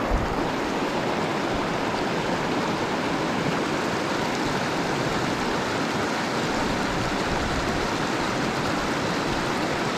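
Steady rush of a shallow river running over stones and riffles.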